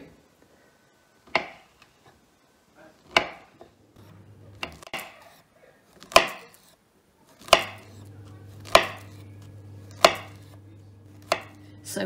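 Table knife slicing a banana into rounds on a wooden chopping board: a sharp knock of the blade on the board with each cut, about nine cuts roughly a second apart.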